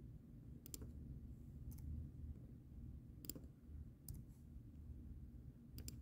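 Sparse, faint clicks of a computer mouse and keyboard, about seven spread over the few seconds and some in quick pairs, over a low steady hum.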